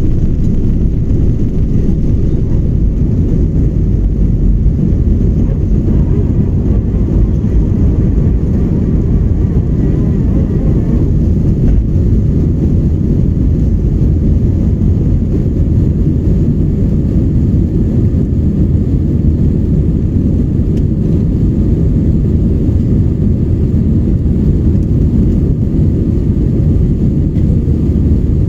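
Steady, loud jet-engine and airflow noise of an Airbus A320 in the climb after takeoff, heard from inside the passenger cabin as a deep, even rumble.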